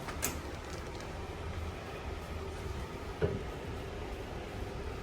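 A Honda Civic being let down off its jack or lift: a steady low hum, with a light click just after the start and a short knock about three seconds in.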